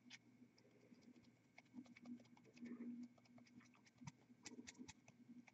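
Near silence: faint steady room hum with scattered soft ticks and clicks.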